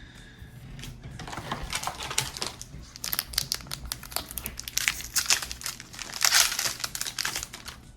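Crinkling of a trading-card booster pack's plastic wrapper as it is handled and torn open: a dense, irregular crackle that starts about a second in and is loudest near the end.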